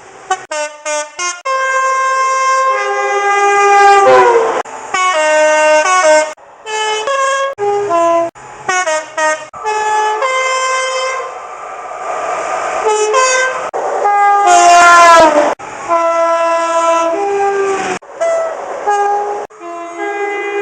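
A quick succession of British train two-tone horns, mostly a higher note followed by a lower one, some as short toots and some held. Twice the pitch slides down as a train passes sounding its horn.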